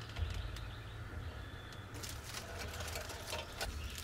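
Small paper-and-twig kindling fire crackling faintly in a wood stove firebox: a few scattered sharp pops over a low steady rumble, with the hiss brightening about halfway through as the fire takes hold.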